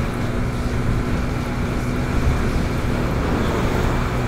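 Motorcycle riding at steady speed: a constant rush of wind over the microphone, with the engine's low hum underneath.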